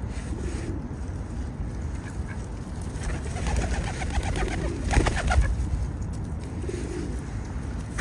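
Birds calling: soft low calls near the start and again near the end, and a louder call with higher notes about five seconds in, over a steady low background noise.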